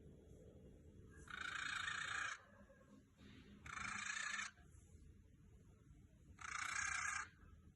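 Cockatiel making raspy, hissing snore-like noises: three of them about two and a half seconds apart, each lasting about a second.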